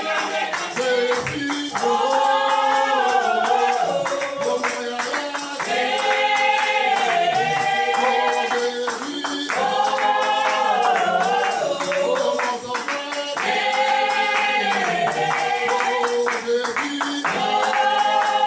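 A song with voices singing long held phrases, each a few seconds, over a steady beat with tambourine-like percussion.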